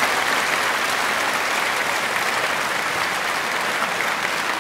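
Concert hall audience applauding: many people clapping steadily, easing off slightly toward the end.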